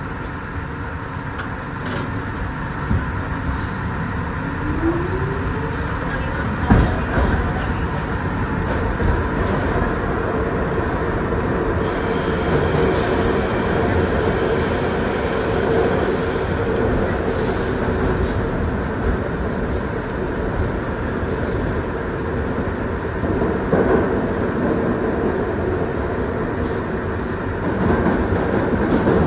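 Kawasaki R62 subway car running through a tunnel, heard from inside the car: a steady rumble and clatter of wheels on rail, with a short rising whine about five seconds in and a sharp knock about seven seconds in. From about twelve seconds a high, steady wheel squeal joins in for several seconds as the train takes a curve.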